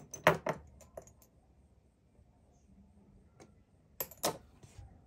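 Light, hard clicks and taps of watercolour painting tools being handled: a quick cluster in the first second, then two sharper clicks about four seconds in.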